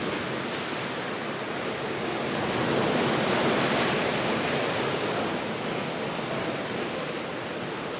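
Sea waves breaking and washing over a rocky shore, swelling louder about halfway through and then easing off.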